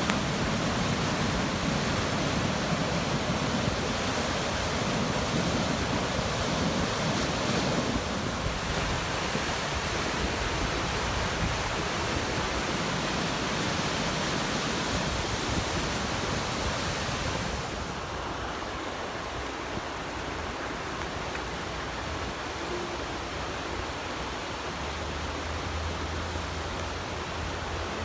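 Water rushing steadily through a wadi gorge, a continuous even rush that gets somewhat quieter about two-thirds of the way through.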